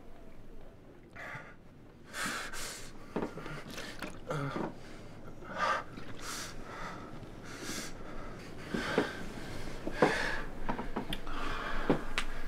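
A woman sobbing, drawing gasping breaths in short bursts about once a second, with a couple of sharp clicks near the end.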